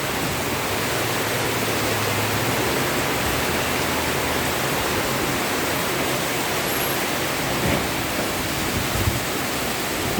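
Very heavy rain pouring steadily, a dense, even hiss, with two brief soft knocks near the end.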